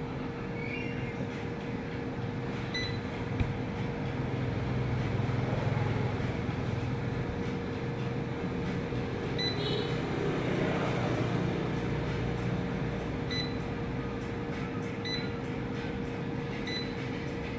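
Dessini DS-807 air fryer running with a steady hum, its touch-panel buttons giving short high beeps now and then as the temperature and timer are changed.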